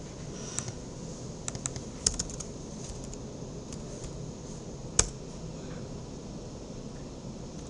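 Computer keyboard typing: scattered key clicks, with one louder key strike about five seconds in, over a steady background hiss.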